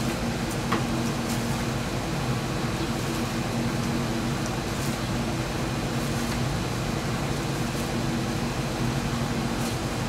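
Outdoor unit of a Carrier heat-pump air conditioner running in cooling mode: a steady compressor hum with fan noise, and a few faint ticks. The compressor is still running while the high-side service valve is closed to pump the R22 refrigerant down into the outdoor unit.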